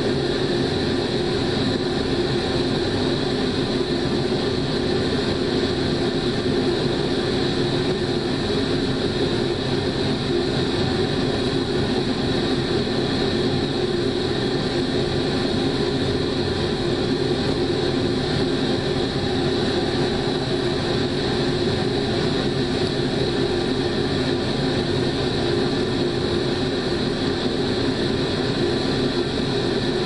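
A steady, unchanging mechanical drone with a low hum and a hiss on top, like a fan or motor running.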